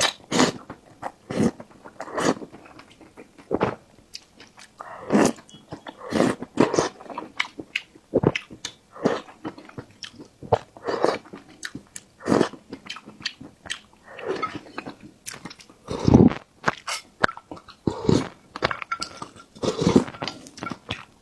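Close-miked eating: wet chewing and smacking with irregular bites, a few of them crunchy.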